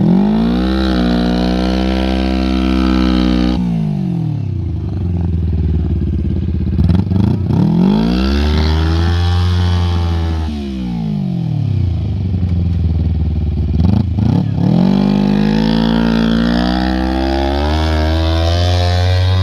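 A go-kart's small petrol engine being revved hard three times, its pitch climbing, holding and dropping back each time, with a few short knocks between revs. It is working to pull the kart up out of a pothole.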